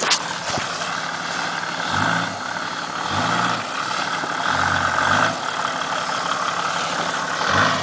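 Toyota Land Cruiser's engine running at low speed as it crawls over rocky ground, with about four short rises in revs.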